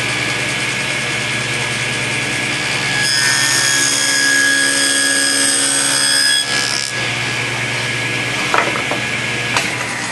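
Table saw running with a wobble-wheel dado blade, cutting a test dado in MDF. The cutting gets louder about three seconds in and eases off after six and a half seconds. Two light knocks follow near the end.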